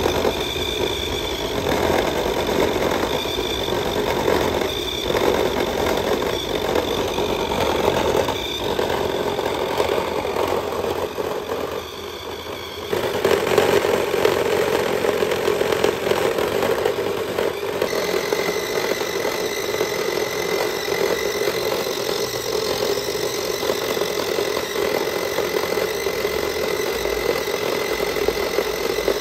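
Small electric motor and gears of a toy RC car running flat out with its wheels spinning in place, a steady whirring whine with a rattle. It dips briefly near the middle, comes back louder, and a steady high tone joins in later.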